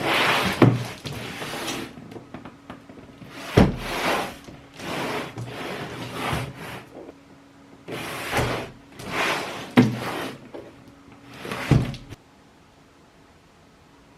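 Cardboard packaging being opened and handled: a run of sliding, scraping and rustling sounds with a few sharp thumps, stopping near the end.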